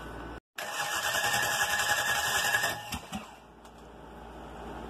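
Starter cranking a Chevy 305 small-block V8 for about two seconds, with a fast steady mechanical rhythm, then stopping.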